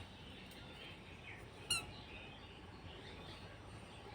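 A bird gives one short, high, squeaky chirp about a second and a half in, over faint background noise.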